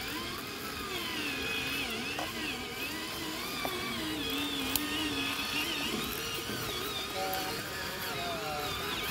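Electric motor and gearbox of a loaded scale-model RC dump truck whining as it drives, the pitch rising and falling with the throttle, with a few faint clicks.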